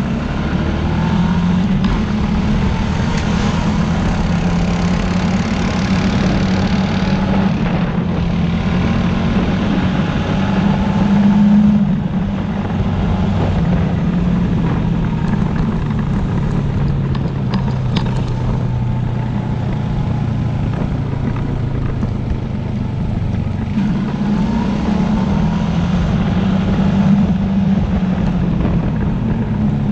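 ATV (quad bike) engine running under way, its note rising and falling with the throttle and loudest about eleven seconds in.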